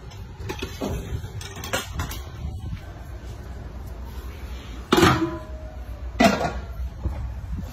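A low steady rumble with a few light knocks in the first two seconds, then two loud short clattering knocks about five and six seconds in.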